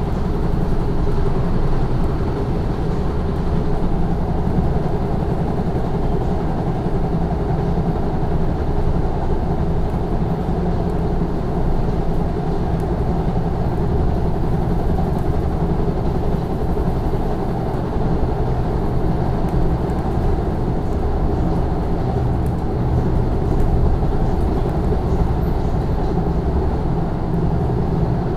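Steady running noise of a passenger train heard from inside the carriage at speed: a continuous low rumble of wheels on rail that holds even throughout.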